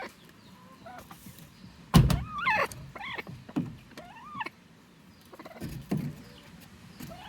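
Hen giving a series of short squawking calls, starting with a sharp thump about two seconds in and another call near the end.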